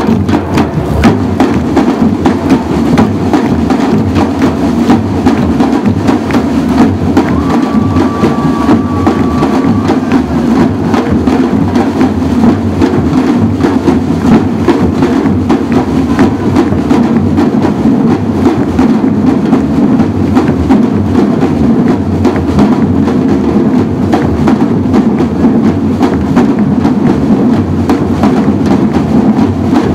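Samba drum ensemble playing: large surdo bass drums and smaller drums struck with sticks in a steady, continuous rhythm, with a short held high note about eight seconds in.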